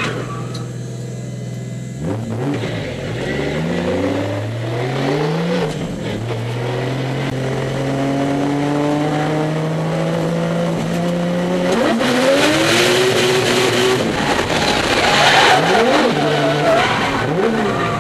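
Nissan RB26DETT twin-turbo straight-six in a 180SX, heard from inside the cabin: a steady idle, then revs climbing in two short pulls and a long steady pull as the car accelerates. In the last third the revs swing up and down under a hiss of tyre squeal as the car slides.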